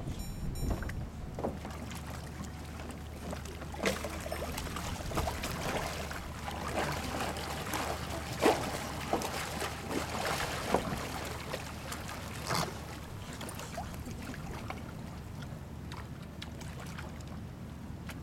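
Shallow seawater lapping and splashing around feeding stingrays, with a run of sharp splashes through the middle.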